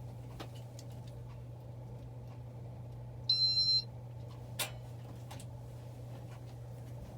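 1988 Casablanca Victorian ceiling fan running with a steady low motor hum. About three seconds in, one short electronic beep as the fan is switched to speed 3, followed a second later by a click.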